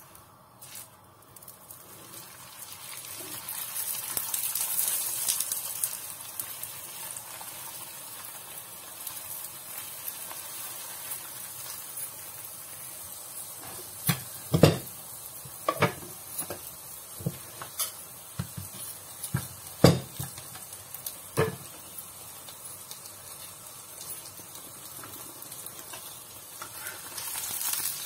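A mince-stuffed paratha frying in oil on a hot tawa, sizzling steadily; the sizzle swells a few seconds in, then settles. About halfway through comes a run of sharp knocks and clatters from kitchen utensils.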